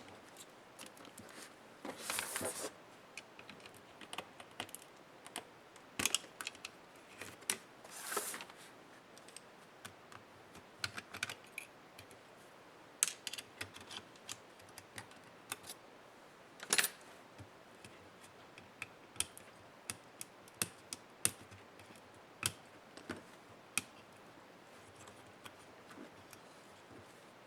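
Irregular light clicks and taps of laptop parts and small tools being handled during disassembly, with two short scraping rustles, about two seconds in and about eight seconds in.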